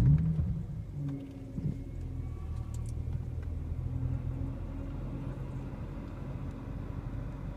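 BMW N54 twin-turbo straight-six in a 2008 335xi, started hot: it catches with a brief flare in revs that eases off within about a second, then settles into a steady idle. No misfire is felt at this idle.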